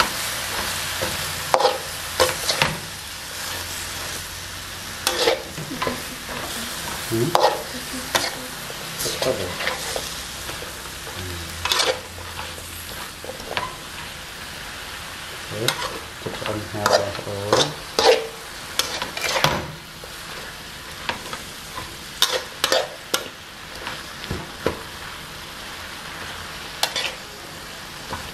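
Kale and pork stir-frying in a wok: a steady sizzle under irregular clinks and scrapes of a metal spatula against the pan, most frequent about halfway through. The sizzle eases off a little in the last third.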